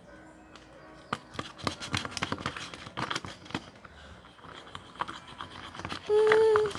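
Homemade slime being pulled apart and kneaded by hand, giving irregular small sticky clicks and crackles. Near the end a child hums one short held note.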